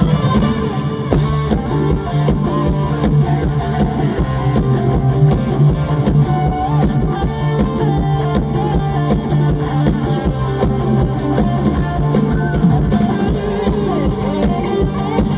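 Mor lam band playing instrumental music: a drum kit keeps a steady beat under electric guitar, over a held low note.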